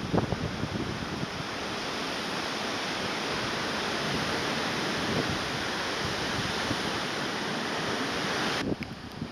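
Steady rush of storm-swollen river water, with wind buffeting the microphone in the first moment. The rush cuts off sharply near the end.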